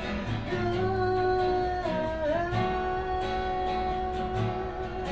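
A man singing one long held note that dips briefly in pitch about two seconds in, over a strummed acoustic guitar.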